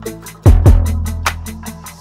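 Background music with a steady beat: a hip-hop style drum loop with regular hi-hat ticks, deep bass and kick drum hits.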